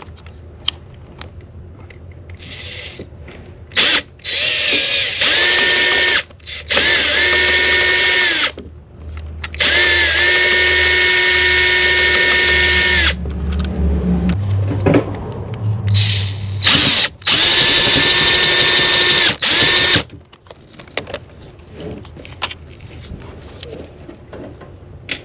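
Handheld power tool spinning out the fuel rail bolts in several runs of a few seconds each. Each run spins up to a steady high whine and stops abruptly, with a rougher, lower-pitched stretch in the middle of the series.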